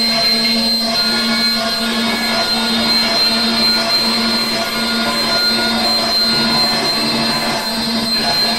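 Prepared electric guitars played through effects pedals and amplifiers in a dense, steady noise drone. A held high whistling tone and a low hum run underneath.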